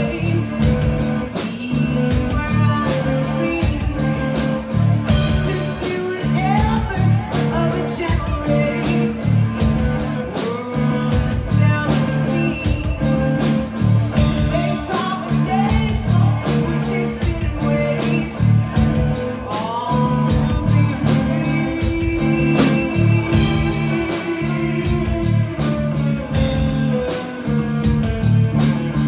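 Live blues-rock band playing on a club stage: electric guitars, bass guitar and drum kit keeping a steady beat, with a woman singing lead.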